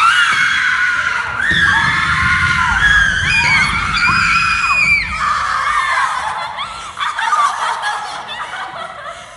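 Several girls screaming together in long, high, overlapping shrieks of acted hysteria, the screams tailing off after about six seconds. Low thumps and scuffling run beneath them from about a second and a half in to about five seconds, as bodies drop to a wooden stage floor.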